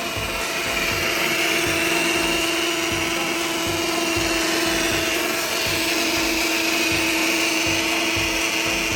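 Bosch auxiliary electric water pump on a 2013 Mercedes C250 running with an uneven, persistent whirring buzz: a steady mid-pitched hum, a higher wavering whine, and a low pulsing about twice a second. The owner suspects a dirty or failing pump.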